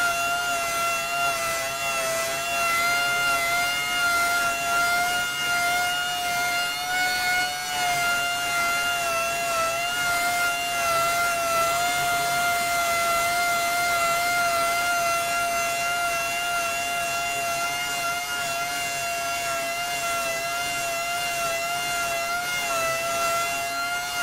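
Random orbital sander running with a steady high whine while sanding the first coat of body filler on a pickup's wheel arch, its pitch dipping slightly now and then.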